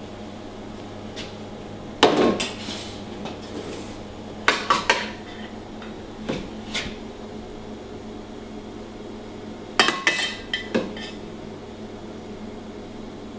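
Metal spoon and utensils clinking against a stainless steel mixing bowl and dishes, in several separate short clatters, over a steady low background hum.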